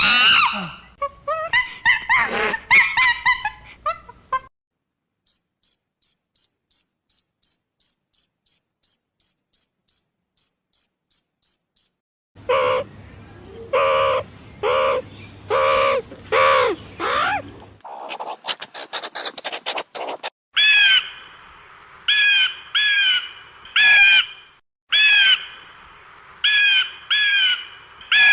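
A sequence of different animal sounds. A steady run of high, insect-like chirps comes about two a second, then lower calls that rise and fall in pitch, a quick burst of rapid clicks, and a string of short repeated calls.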